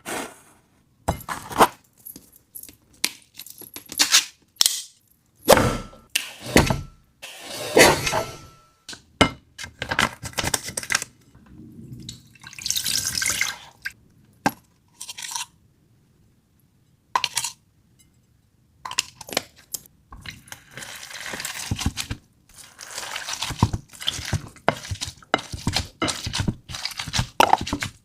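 Close-up food-preparation sounds: dishes and utensils clinking and being handled, with liquid pouring and dripping, as a string of irregular short noises with a quiet pause about halfway through.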